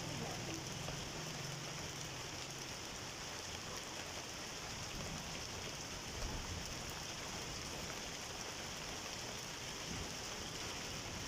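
Steady monsoon rain falling, an even hiss with no break. A faint low rumble under it fades out a few seconds in.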